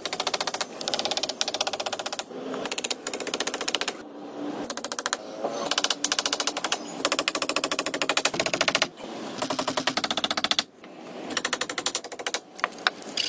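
Handheld power drill driving screws into a wooden pole railing. It comes in repeated bursts of fast rattling, each lasting about a second, with short pauses between.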